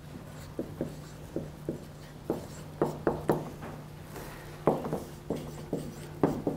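Marker pen writing on a whiteboard: a run of short, irregular squeaks and taps as the strokes are drawn, over a steady low hum.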